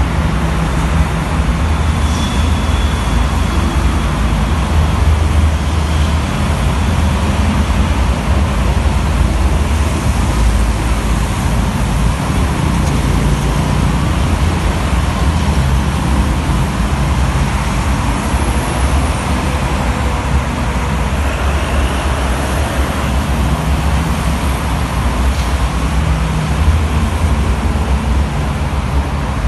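Heavy toll-road traffic of trucks, buses and cars passing on wet asphalt: a steady, loud drone of engines and tyres.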